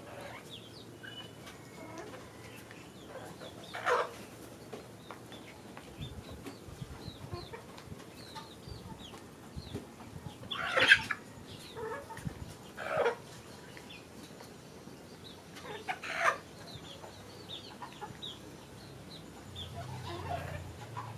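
A flock of Noiler and local-breed hens clucking while they drink, with about four louder calls a few seconds apart, the loudest about eleven seconds in, over faint high chirps.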